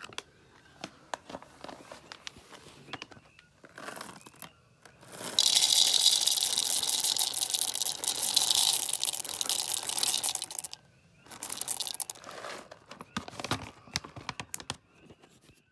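Scattered clicks and crackling, with a loud, steady hiss from about five seconds in that cuts off about eleven seconds in.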